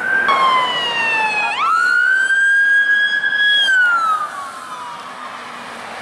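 Police car siren wailing: the pitch slides down, sweeps sharply up and holds high for about two seconds, then slides down again as the siren grows fainter.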